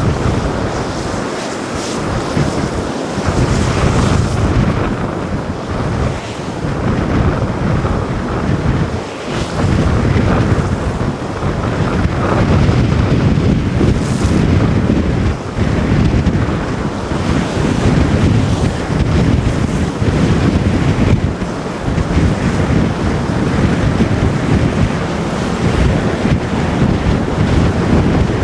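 Strong wind buffeting the microphone in gusts, over the rush of waves in the inlet.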